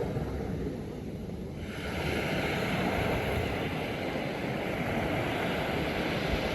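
Ocean surf washing on a sand beach, with wind rumbling on the microphone; the hiss of the wash swells up about two seconds in.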